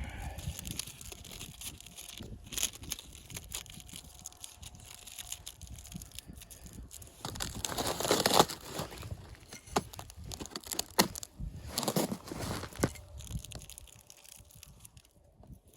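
Irregular rustling and crunching, with louder, longer crunches about eight and twelve seconds in, easing off near the end.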